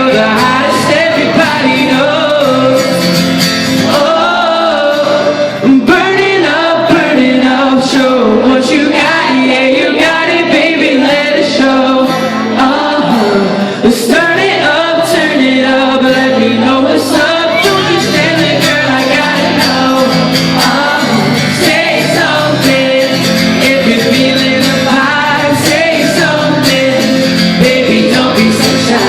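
A pop song sung live over a loud backing track, the voice carrying the melody without a break.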